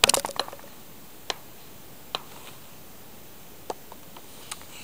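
Sharp clicks of a hammer striking rock while digging for Herkimer diamonds: a quick run of strikes at the start, then single knocks every second or so.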